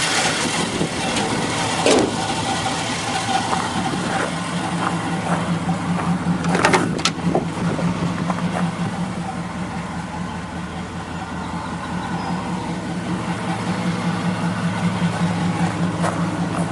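A 1967 Pontiac Firebird's 326 V8 idling steadily, with a brief knock or click about two seconds in and again around seven seconds in.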